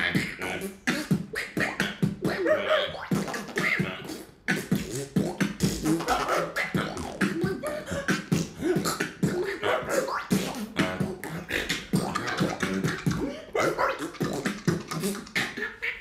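Human beatboxing: a fast run of mouth-made kick, snare and click sounds with short vocal effects, performed as an animal-sound beatbox routine.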